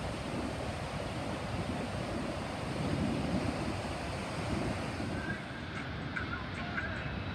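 Wind buffeting the microphone over the steady rumble of large surf breaking far below. About five seconds in, faint short high tones join in.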